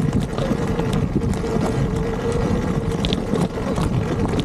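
Sur-Ron Ultra Bee electric dirt bike riding along a rough trail: its electric motor whines at a steady pitch over a low rumble of tyres and suspension, with wind on the microphone and a few light rattling clicks.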